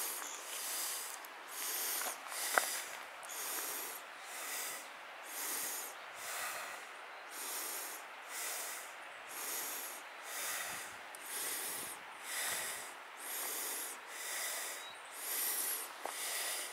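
Footsteps crunching and swishing on a dry, leaf-littered stony mountain path, about one step a second in a steady rhythm, with one sharp click a couple of seconds in.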